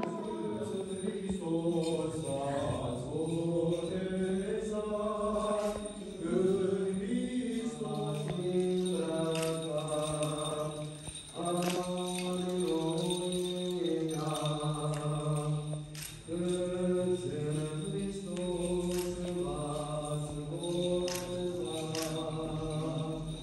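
Orthodox liturgical chant: male voices singing a slow, melismatic melody in long held notes over a steady low drone.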